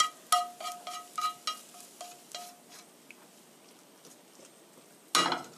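Wooden chopsticks tapping the rim of a frying pan to knock the last scrambled egg onto a plate: about ten quick light taps in the first three seconds, each leaving the pan ringing briefly with a clear tone. Near the end comes one short, loud scrape.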